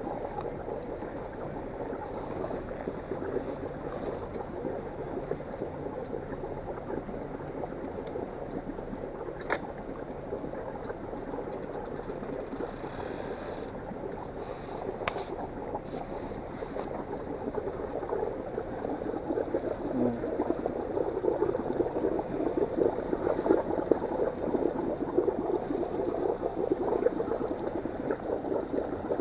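Water sloshing and splashing steadily, growing louder in the second half, with a couple of brief clicks.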